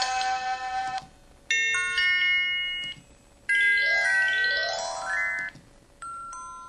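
MS340 mobile phone playing its built-in effect sounds one after another: a chiming melody that stops about a second in, a short chime phrase, then a quick rising run of electronic notes, and a brief two-note tone near the end.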